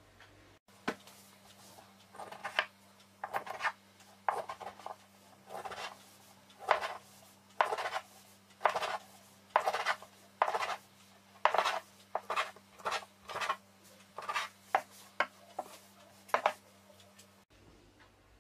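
Rim of a tea glass pressed down through a rolled, walnut-filled baklava dough log onto a wooden board, cutting out crescents: a steady run of short strokes, roughly one or two a second.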